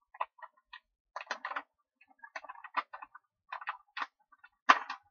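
A pouch of pre-cooked rice being squeezed and shaken out into an aluminium pan: irregular clicks and rustles, with one sharper knock near the end.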